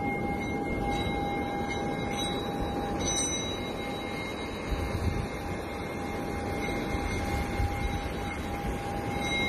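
A small metal singing bowl being sung with a wooden mallet worked around it, holding one steady ringing tone with fainter overtones that dips briefly near the middle. Behind it is the wash of surf, with wind gusting on the microphone.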